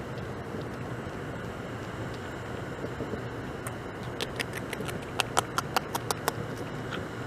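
Beaver gnawing bark off a log: a quick run of sharp, crunching clicks from its teeth past the middle, over a steady background hiss.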